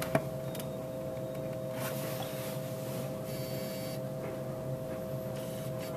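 Steady electrical hum, with a sharp click just after the start and a few faint handling ticks; a brief high whine comes in about three and a half seconds in.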